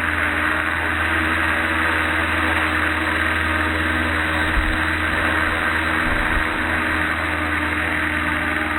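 Electric motor and rotors of an Eachine E250 AH-64 Apache RC helicopter whirring steadily in flight, with an even pitch throughout.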